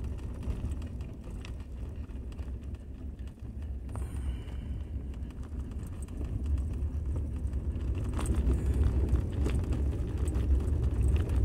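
Road and engine noise inside a moving car's cabin: a steady low rumble that grows louder about halfway through.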